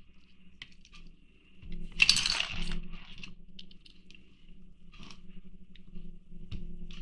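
Small metal parts of a diecast toy car clinking and rattling on a work surface while being handled, loudest as a short clatter about two seconds in, with a few light clicks after it. A low steady hum runs underneath.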